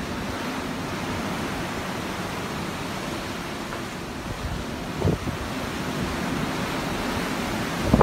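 Ocean surf: a steady rush of breaking waves, with a brief low thump about five seconds in.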